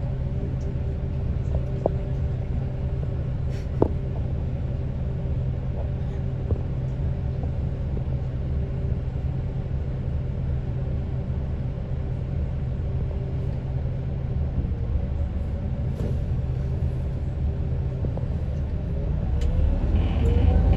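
Steady low rumble of a vehicle, with a faint steady hum over it and a few light clicks; it grows louder near the end.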